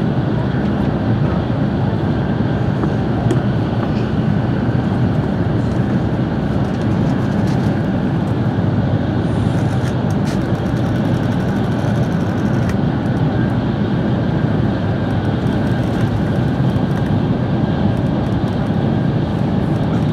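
Steady running noise of a Tokaido Shinkansen train travelling at speed, heard inside the passenger cabin, with a few faint ticks.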